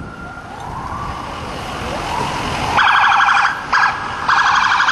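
Police car sirens: a wail rising and falling, then two loud blasts of a harsh, rapidly pulsing siren tone, one about three seconds in and one near the end.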